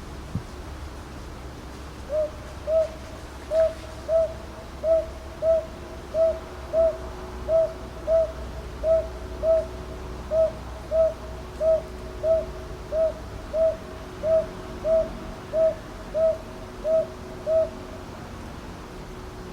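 Northern boobook (Japanese hawk-owl) calling: a long steady run of soft low hoots in pairs, "ho-ho, ho-ho", about a dozen pairs, starting about two seconds in and stopping shortly before the end.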